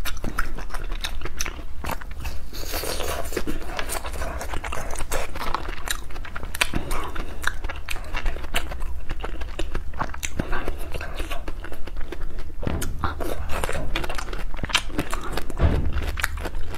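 A person biting and chewing ice cream and desserts close to a clip-on microphone, with frequent crunches and sharp mouth clicks.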